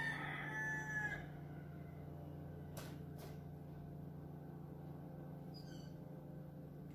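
A rooster crowing, one long call that ends about a second in, over a steady low hum. Two sharp clicks follow close together about three seconds in.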